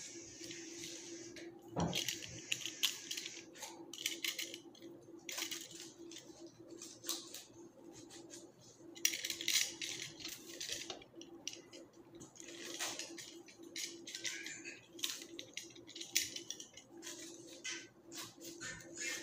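Flower stems and foliage being trimmed and handled: irregular rustling of leaves with short snips and clicks from a florist's cutting tool, over a steady low hum.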